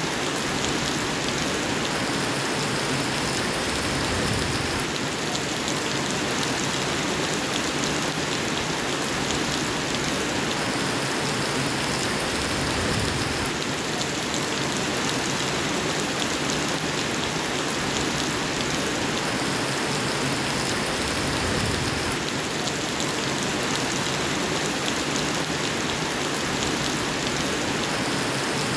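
Steady rain falling, a dense even hiss of drops on surfaces that repeats itself about every nine seconds, like a short looped recording.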